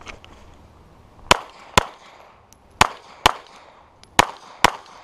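Compact semi-automatic pistol fired six times in three pairs, the two shots of each pair about half a second apart and the pairs about a second apart.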